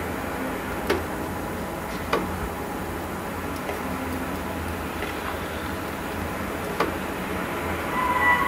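Steady low rumble with three sharp clicks, then near the end a drawn-out tone at two pitches an octave apart swells in and gets louder: the unexplained strange sound heard in Arkhangelsk in March 2012, whose source was never found.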